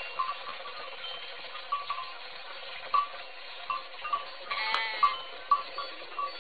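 A goat bleats once, briefly, about four and a half seconds in. Faint short high tones recur irregularly throughout.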